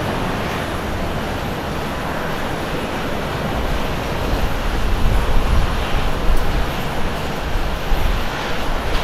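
Boeing 777 twin-jet climbing out just after takeoff: a steady, broad engine roar. About halfway through, the low rumble grows louder and more uneven.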